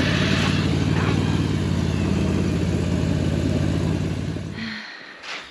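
Argo ATV engine running steadily, then dying away about four and a half seconds in.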